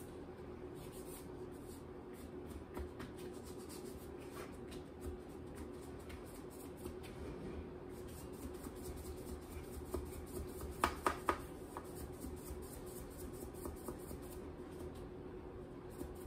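Plastic fondant smoother rubbing and pressing over fondant on a cake: soft, faint scraping over a steady low hum. A quick run of three sharp taps comes about two-thirds of the way through.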